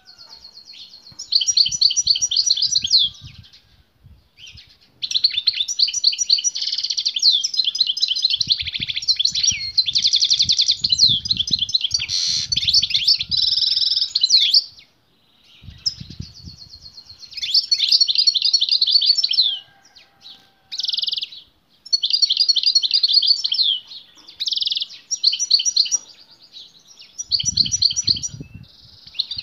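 Male European goldfinch singing vigorously: bursts of fast twittering, trilling phrases lasting a few seconds each, separated by short pauses. Brief low thuds sound underneath at times.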